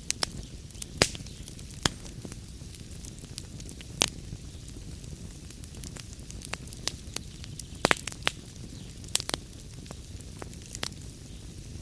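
Wood fire burning in a fireplace: a steady low rumble of flames with irregular sharp crackles and pops from the burning logs, a few louder pops about 1, 4 and 8 seconds in.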